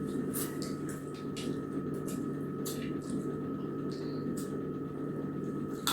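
Chicken bones being chewed at the end of a meal: a scattered string of short crunching clicks over a steady low hum.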